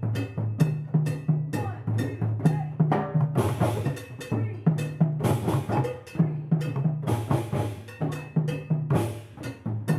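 A group of djembe hand drums played together in a steady repeating rhythm, deep bass tones alternating with sharper slaps, with a few short busier stretches of rapid strokes.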